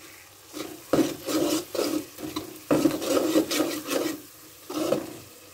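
Metal spoon scraping and stirring a thick spice paste against the bottom of a metal pot in quick repeated strokes, working the added turmeric, chilli and cumin powder into the frying masala.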